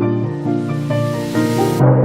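Background music: sustained keyboard notes under a rising hiss that swells and cuts off abruptly near the end, as the music changes to a new passage.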